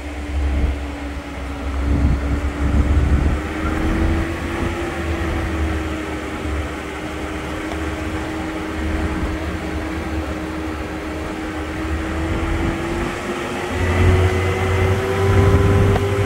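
An engine running steadily, a drone that rises slowly in pitch, with a low rumble under it.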